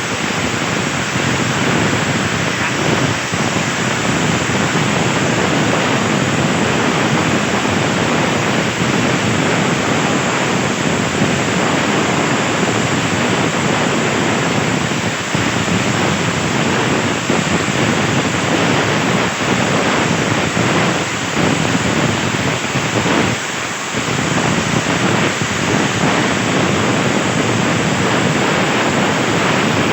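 CNC plasma torch cutting 1.5 mm steel sheet: a steady, loud hiss of the arc and air jet, dipping briefly about three-quarters of the way through.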